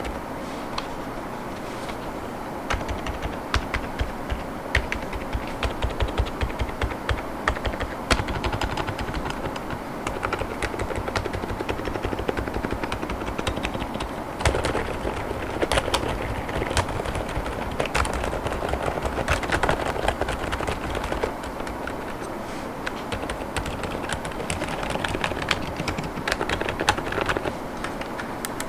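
Fast, continuous typing on an Epomaker RT100 mechanical keyboard with Outemu Silent Lemon V3 tactile switches and transparent PC keycaps: a stream of soft, damped key clacks with a short lull about three quarters of the way through.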